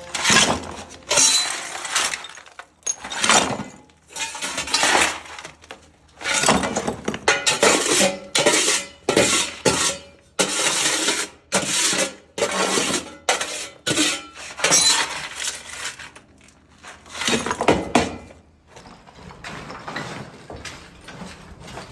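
Ceramic bathroom tiles and fittings being smashed with a hammer: repeated irregular crashing blows, each followed by clattering, tinkling shards. The blows stop a few seconds before the end.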